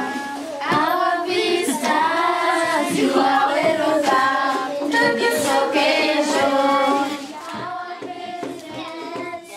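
A group of children singing a song together, loud for about the first seven seconds and then quieter.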